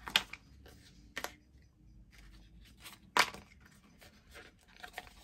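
Die-cut card pieces being folded and creased by hand: a few short, crisp crackles of stiff card bending along the score lines, the loudest about three seconds in.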